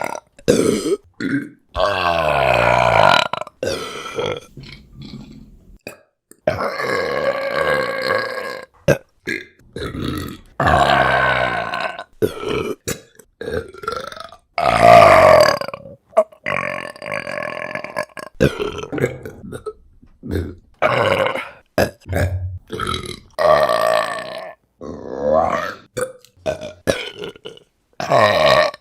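A rapid string of women's burps, one after another, each separated by a short silent gap. Some are long and drawn out with wavering pitch, others short; the loudest comes about halfway through.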